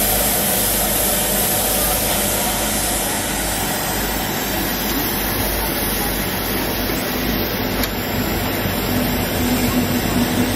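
Steam tank locomotive 75 1118 standing with steam hissing steadily; the high hiss fades after about four seconds, and a low steady drone comes in near the end.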